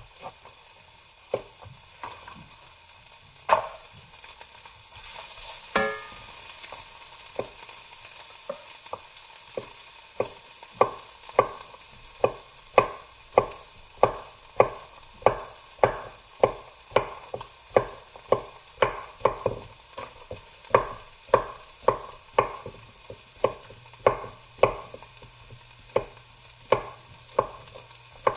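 Tosa nakiri knife chopping carrots on a wooden cutting board. There are a few scattered cuts at first, then a steady rhythm of about two crisp chops a second from about ten seconds in.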